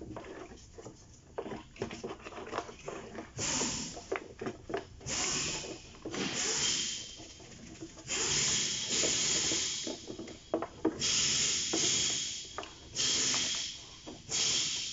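Repeated hissing bursts, each about a second long, with scraping and light clinks between, as a carbon-fouled EGR valve is cleaned with gasoline over a drain pan.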